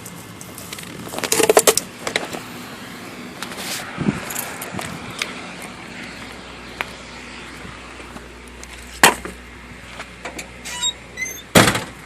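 A series of sharp metallic clanks and rattles from objects being handled, the loudest about nine seconds in and just before the end, with a short run of high chirps shortly before the last clank.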